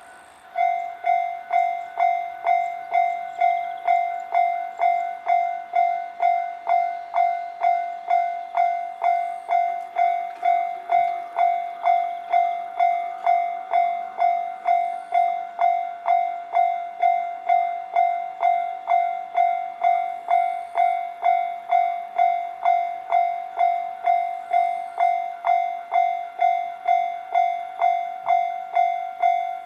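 Japanese railway level-crossing warning bell starting up about half a second in, then ringing a steady, evenly repeated single-pitched ding, about one and a half strikes a second: the crossing is warning of an approaching train.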